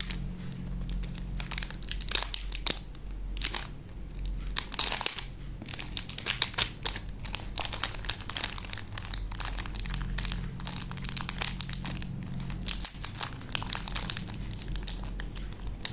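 Plastic wrapper of a gummy bear sachet crinkling and tearing as it is pulled open by hand, in many short crackles. A steady low hum runs underneath.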